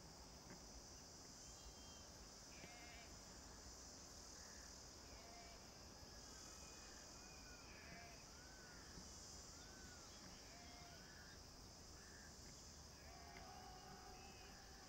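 Near silence: a faint, steady high insect drone, with short rising-and-falling chirps repeating about once a second through the middle.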